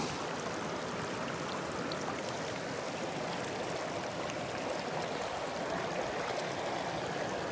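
Steady rush of a shallow mountain stream running over rocks.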